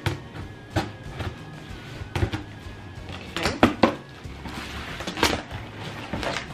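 A taped cardboard box being handled and worked open: a string of sharp knocks, scrapes and crinkles against the cardboard and packing tape, busiest about three and a half seconds in, over soft background music.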